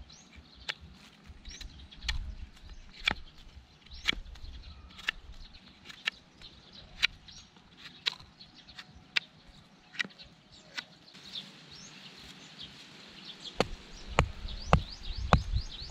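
Victorinox Outrider multitool blade whittling a wooden stake, each stroke a short sharp click at a steady pace of about one a second. Birds chirp quickly in the background from about two-thirds of the way in, and low thumps come near the end as the stake is handled.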